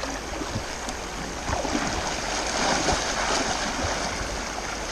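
Water splashing and sloshing around a person's legs as he wades through a flowing creek, over the steady sound of the running creek, louder through the middle.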